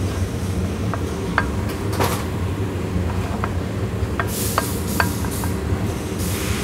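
Light, irregular metallic clinks and ticks as the threaded input carrier is turned down by hand into the mud motor's lower unit housing, over a steady low shop hum, with a few short hissy rushes.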